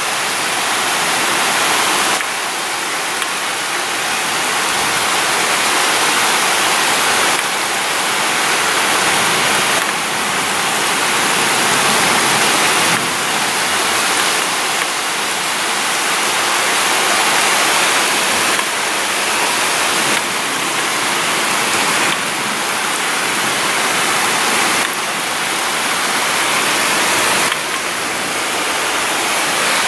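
Heavy thunderstorm rain pouring steadily, a dense even hiss.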